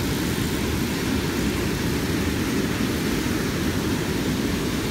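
River water pouring over a low weir and churning through white-water rapids: a steady, even rushing noise, heaviest in the low end.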